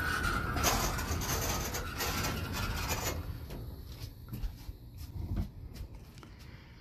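Roll-off observatory roof rolling on its wheels along steel garage-door track: a steady rolling noise that dies down about three seconds in, then a few light clicks and knocks.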